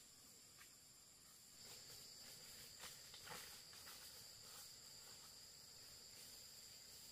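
Faint, steady high-pitched insect trilling, with a second trill joining about a second and a half in, and a few soft clicks in the middle.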